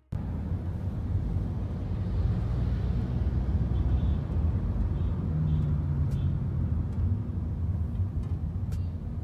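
Car driving, heard from inside the cabin: a steady low rumble of engine and road noise that cuts in suddenly at the start.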